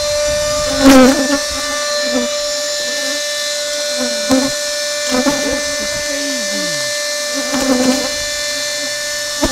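A small motor running steadily with a high whine, with several knocks and clatters from equipment being handled, the loudest about a second in.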